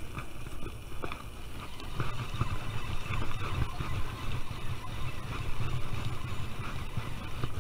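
Wind buffeting the microphone in an irregular low rumble, with faint knocks and clicks from handling gear in the kayak.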